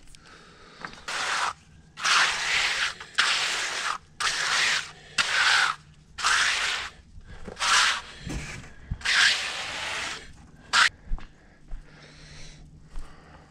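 Hand float swept back and forth over wet concrete, about eight scraping strokes, then stopping near the end.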